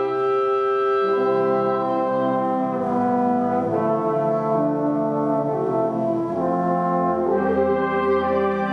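High school symphonic band playing slow, sustained chords led by the brass (trombones and horns), the chord changing every one to two seconds.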